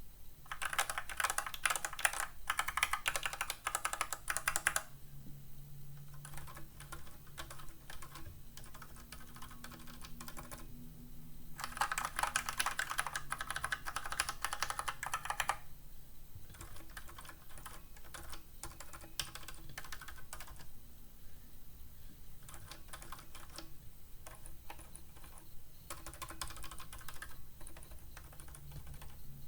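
Rapid typing on mechanical keyboard switches, Outemu Silent White among them, tried one after another for their sound. Two stretches of louder, brighter key clatter alternate with spells of quieter, softer typing.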